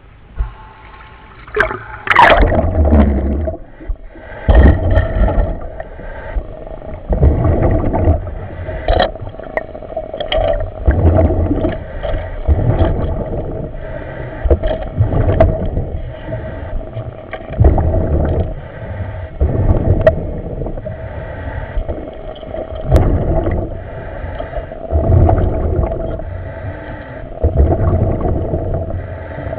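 A commercial diver's breathing and exhaust bubbles in a diving helmet, heard over the helmet microphone: gurgling surges about every two and a half seconds over a steady hum.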